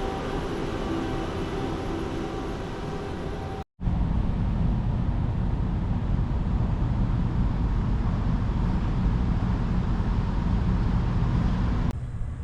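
Steady low rumble of a moving vehicle, with a few faint steady tones in the first part. It comes in separate clips, with a sudden cut about four seconds in and a drop in level near the end.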